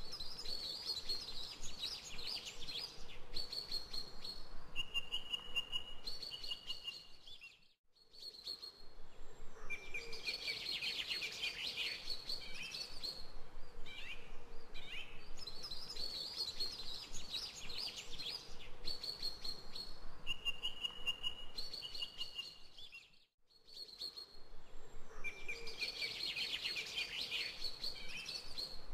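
Birds chirping and trilling, with short whistled notes over a steady background hiss, in a recording that loops about every fifteen seconds. The sound briefly cuts out twice.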